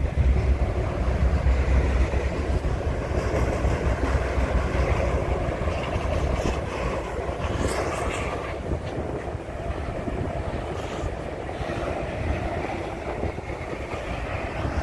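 Freight train of autorack cars rolling past: a steady rumble of steel wheels on rail with a dense run of small clicks and clatter, easing slightly toward the end.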